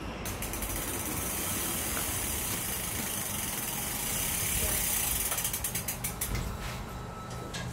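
Bicycle freewheel ticking as the bike is wheeled along: a fast, continuous clicking that slows into separate ticks about five seconds in, then fades.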